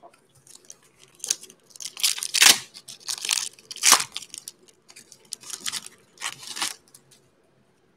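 Shiny foil wrapper of a Panini Mosaic basketball card pack being torn open and crinkled by hand: a run of short ripping and rustling noises, starting about two seconds in.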